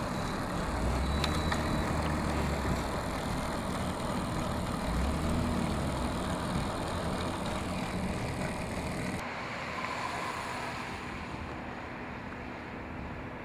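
Steady road noise of motor vehicles with some wind, as a rumble and hiss. The hiss drops away abruptly about nine seconds in, leaving a duller rumble.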